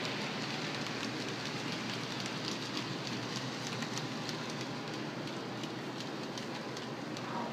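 Hornby OO gauge model train, an A4 Mallard hauling teak coaches, running past on its track: a steady rolling hiss with quick light clicks of the wheels over the rail joints, several a second, from a couple of seconds in.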